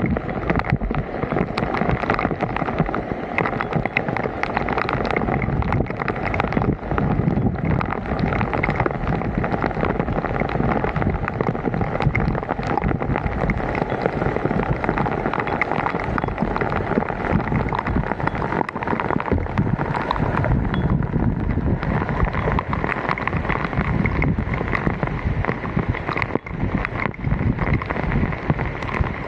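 Steady rushing noise of water and wind on the microphone at a flooded road drain, with many short sharp clicks and splashes scattered through it.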